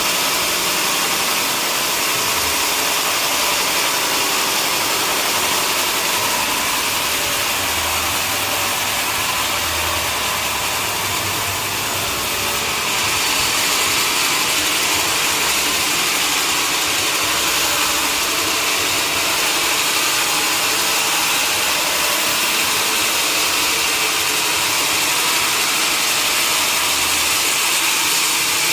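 Sawmill machinery running steadily with an even mechanical noise, a little louder from about halfway through.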